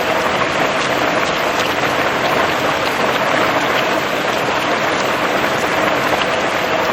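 Steady rain falling on a surface, an even hiss with scattered individual drops.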